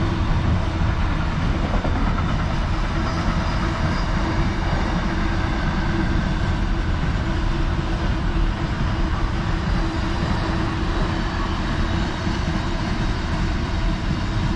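Container freight train's wagons rolling past, a steady rumble of wheels on the rails.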